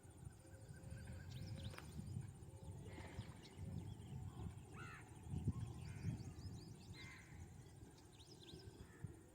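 Crows cawing now and then, with smaller birds chirping high in the background over a low, steady rumble.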